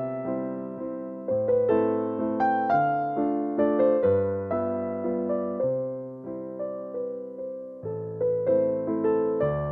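Background piano music: a gentle melody of struck notes that fade, over slower low bass notes.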